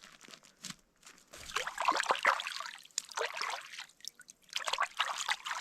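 Water splashing and trickling in several irregular bursts, with a short pause just before the last one.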